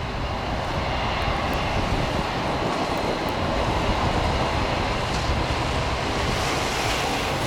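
Steady jet airliner engine noise mixed with wind and rain hitting the microphone, an even rushing sound with no sudden changes.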